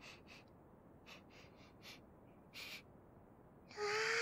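A voice actor's close breathy sounds into a binaural microphone: about seven short, soft breaths or sniffs, then a brief voiced hum about four seconds in.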